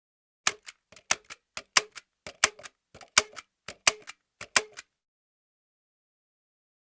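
Hand staple gun fired seven times in a steady run, about one and a half shots a second. Each shot is a sharp snap followed by a fainter click or two. The run stops about five seconds in.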